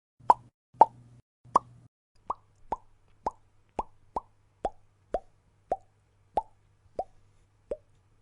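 A series of about fourteen short pop sound effects, roughly two a second, each a sharp click with a quick drop in pitch, like a bubble or mouth pop.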